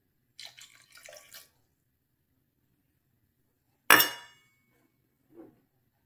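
Apple cider poured from a stainless steel measuring cup into a blender jar, splashing for about a second. About four seconds in comes a sharp metallic clank with a short ring as the metal measuring cup is set down on the countertop, then a faint knock near the end.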